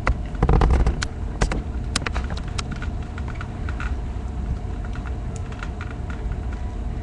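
Cheap cable combination bike lock being bent and twisted by hand: scattered clicks and crackles, with a few louder knocks, as its plastic covering breaks and comes off.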